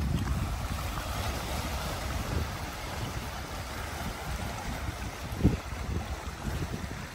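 Wind noise on the microphone over a steady wash of sea water at the shore, with one brief thump about five and a half seconds in.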